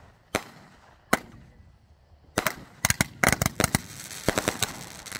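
Firecrackers going off: two single sharp bangs in the first second or so, then a rapid, irregular string of cracks from about two and a half seconds in until near the end.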